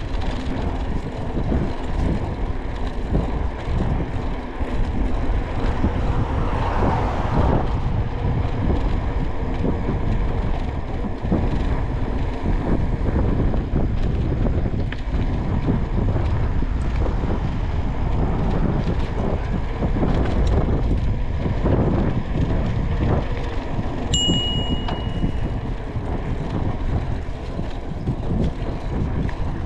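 Wind buffeting the microphone of a moving bicycle, a steady low rumble. A bicycle bell dings once, a bright ringing note that dies away within about a second, near the end.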